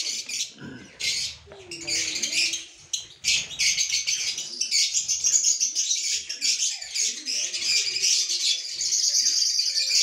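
A flock of lovebirds chattering in an aviary: a dense, shrill mass of chirps. It comes in patches for the first few seconds, then runs almost without a break.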